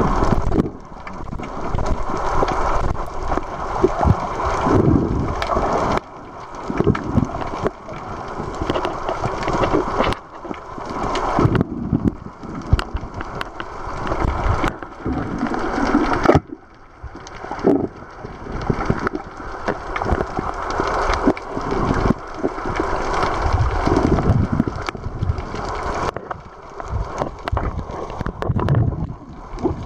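Muffled underwater water noise: water rushing and sloshing around an underwater camera, with frequent dull thumps, and the sound changing abruptly several times where the footage is cut.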